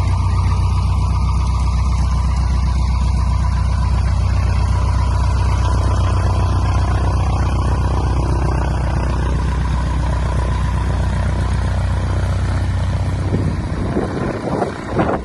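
Cessna 150M's four-cylinder Continental O-200 engine and propeller running at a steady drone. Near the end the low drone drops away and the sound turns uneven.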